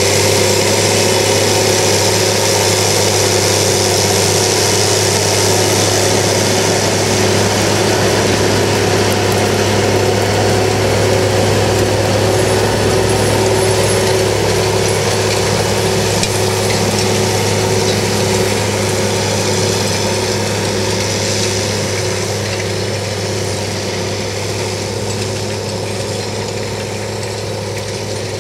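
Engine of a Challenger self-propelled slurry tanker running steadily under load as it drives across the field, pulling its slurry-injector tines through the soil, with a steady hiss above the hum. It grows slowly fainter over the last third as the machine moves away.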